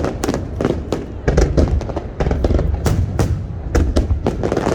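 Aerial fireworks going off in rapid succession: a dense run of sharp bangs and crackles, several a second, over a continuous deep rumble of booms.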